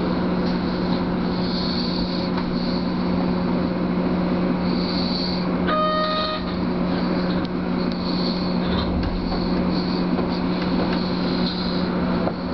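Keio Line electric train running on curving track, heard from the cab: a steady low hum with rail noise and intermittent high wheel squeal. A short pitched beep sounds once about six seconds in.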